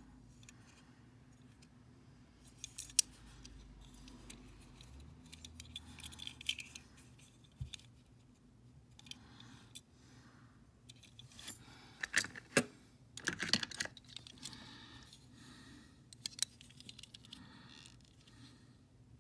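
Small clicks and light metallic rattles of a die-cast toy car being handled and turned in the fingers, with a cluster of louder clicks about twelve to fourteen seconds in.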